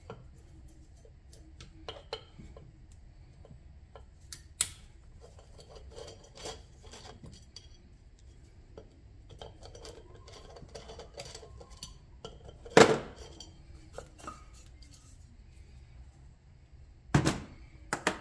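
Metal hand tools and motor parts clinking and knocking on a steel workbench while a golf cart motor's end housing is taken apart. There is one loud knock about thirteen seconds in and two more near the end.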